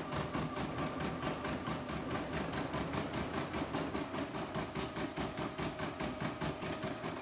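CNY E960 computerized embroidery machine stitching a test design: the needle runs in a fast, even rhythm of about five or six stitches a second, then stops abruptly at the end.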